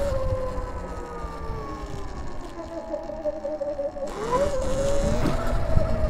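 Sur-Ron electric dirt bike's motor whining at a steady pitch while riding, over wind and tyre rumble. About four seconds in, the whine dips sharply and climbs back up.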